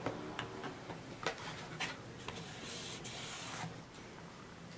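Hands working on a speaker cabinet and its drivers: a few light clicks and taps in the first two seconds, then about a second of scraping hiss near the middle, over a low steady hum.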